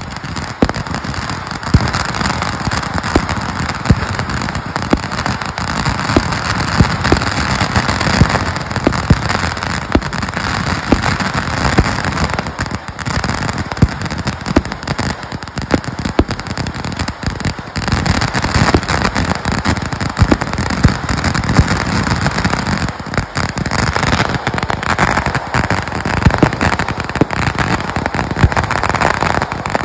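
A vedikkettu fireworks display: a continuous barrage of shells launching and bursting, with many sharp bangs over dense crackling.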